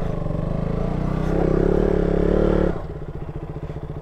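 KTM Duke 200's single-cylinder engine running under throttle and growing louder, then the throttle closes about two-thirds of the way in and it drops back to a quieter, even pulsing idle.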